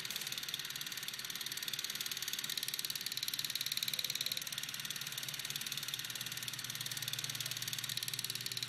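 Super 8 app's simulated film-sprocket sound: a fast, steady mechanical clatter.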